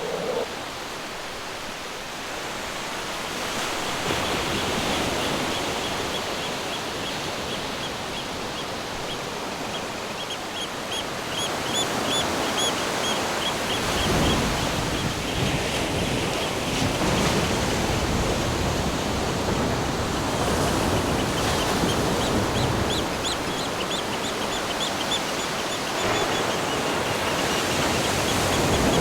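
Ocean surf and wind making a steady rushing noise, with a run of short, high chirps repeating several times a second over it.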